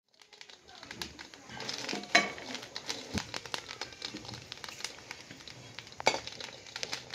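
Chopped green chillies and garlic cloves tipped into a steel kadhai over a wood fire and starting to roast, with irregular crackling and ticking. A few sharper metal clinks against the pan, the loudest about two seconds and six seconds in.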